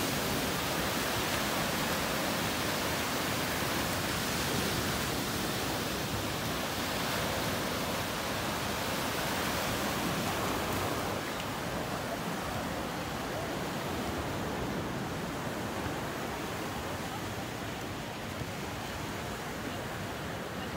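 Small waves breaking and washing up the beach: a steady rush of surf.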